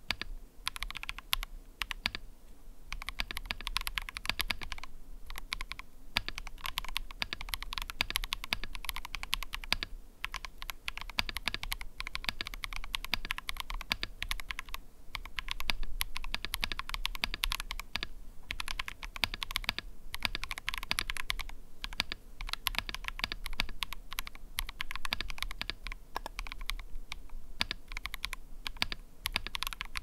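Fast typing on a custom 60% mechanical keyboard, a KUIH60 aluminium case with KTT Matcha tactile switches, a polycarbonate plate with Poron foam and tall SA-profile double-shot keycaps: a dense, even patter of keystrokes broken by brief pauses every few seconds, as a typing sound test of the build.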